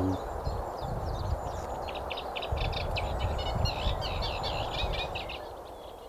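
Reed warbler singing a fast, chattering run of short repeated notes that stops about a second before the end, over a low rumble.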